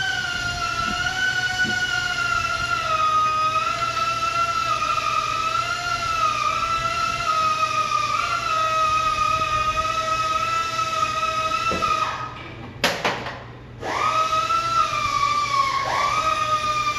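Background music: a single sustained electronic tone that wavers and steps slowly in pitch, dropping out briefly about three-quarters of the way through.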